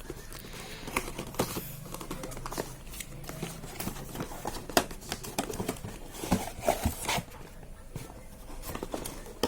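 Headphone packaging being handled and opened: rustling and crinkling with scattered clicks and taps.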